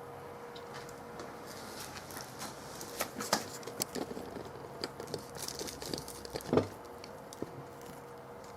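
A run of light clicks, taps and knocks from hands handling hard objects, the loudest knock about six and a half seconds in, over a steady electrical hum.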